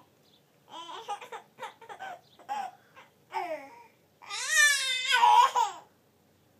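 Baby babbling in short high-pitched bursts, then a loud, longer squeal about four and a half seconds in.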